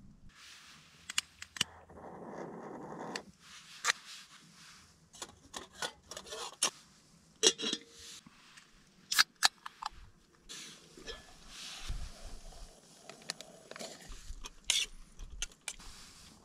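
Camp cooking kit and food packaging being handled by hand: scattered clicks, taps and scrapes of a metal pot and utensils, with a rustling patch lasting about a second, two seconds in.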